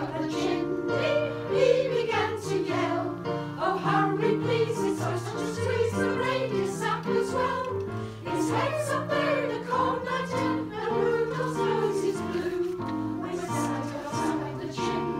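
Women's choir singing a Christmas song in harmony, over low accompanying bass notes that step from pitch to pitch.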